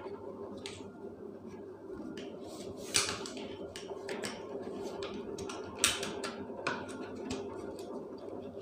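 Scattered sharp clicks and light scrapes of a tester screwdriver working against the plastic pulley inside a pull-cord vegetable chopper's lid, as the pulley is turned to wind its recoil spring and tighten the slack cord. The sharpest clicks come about three seconds and about six seconds in.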